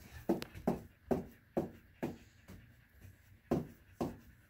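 Dog's wagging tail knocking against an upholstered armchair, a string of dull drum-like thumps at about two a second.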